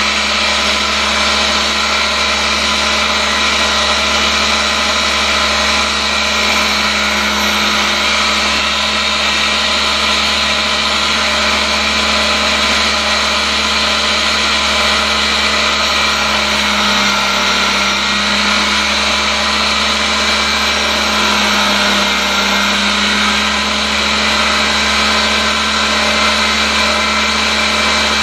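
Home-built tool and cutter grinder running, its grinding wheel steadily grinding a tool held against it: a constant motor hum under a continuous rasping grind.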